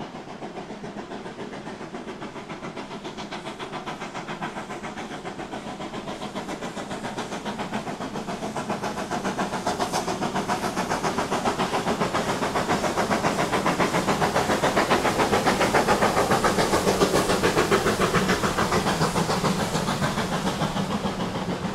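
Steam locomotive working under steam, its exhaust beats coming rapidly and evenly with a hissing edge. It grows steadily louder as it approaches, is loudest about three-quarters of the way through, then eases slightly.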